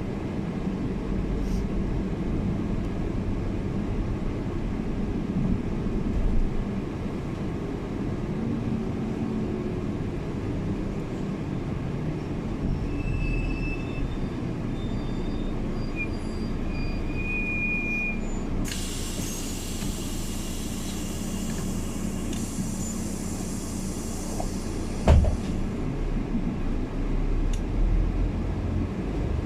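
City bus heard from inside while driving: a steady rumble of engine and road. Faint high squeals come in about halfway through, a high hiss follows for about five seconds, and a single sharp knock sounds near the end.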